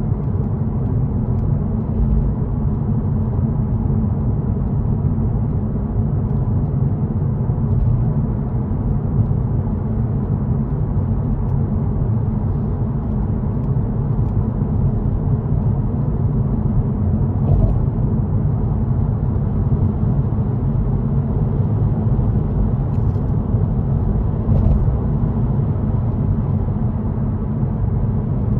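Steady low rumble of tyres and engine heard from inside a car's cabin while it drives at highway speed.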